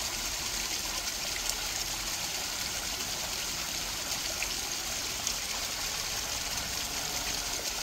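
Water running and trickling steadily.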